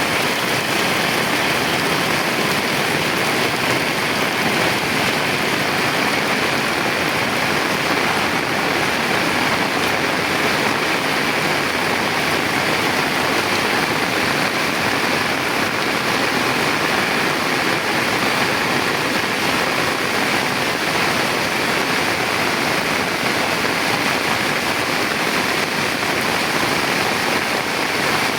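Heavy rain pouring steadily, a dense, unbroken hiss of water.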